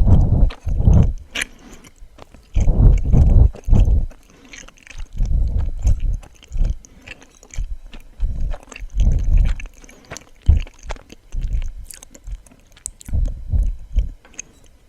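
Close-miked chewing of suama, a soft, springy Japanese rice-flour sweet, in a series of short bouts with brief pauses between them.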